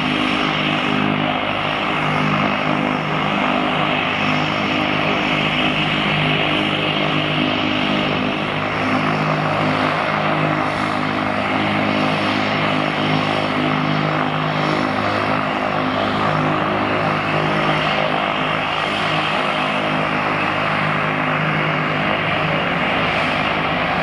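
Cessna 208 Caravan's Pratt & Whitney PT6A turboprop running at low taxi power: a steady propeller hum and turbine hiss with a thin high whine over it.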